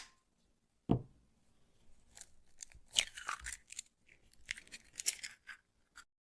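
An egg being cracked: one sharp knock of the shell against a hard edge about a second in, then a run of irregular crackling, crunching clicks as the shell breaks apart.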